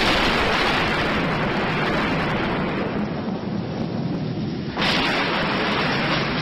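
Thunderstorm: a loud thunderclap rolling away over several seconds, then a second clap about five seconds in, over steady heavy rain.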